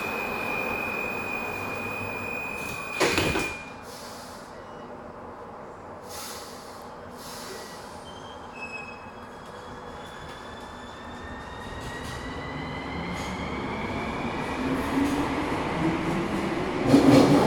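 Subway train's door warning tone sounds steadily, then the sliding doors shut with a thump about three seconds in. The train pulls away, a faint motor whine rising in pitch as it speeds up, and the running noise grows louder toward the end.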